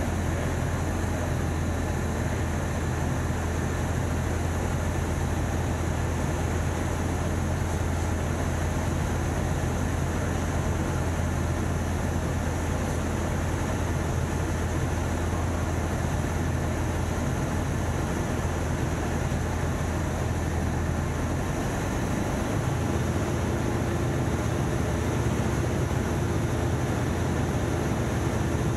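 Engine and propeller of a single-engine light airplane in flight, heard inside the cabin as a steady drone. The drone's note shifts about three-quarters of the way through.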